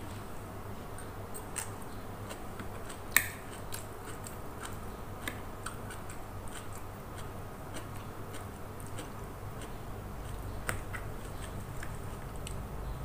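Spoon and fork clicking against a plastic plate while noodles are eaten and chewed, in scattered light clicks with one louder clink about three seconds in, over a low steady hum.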